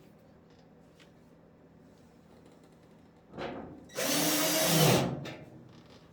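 Power drill running in two short bursts a little past halfway: a brief spin-up, then a louder run of about a second that winds down.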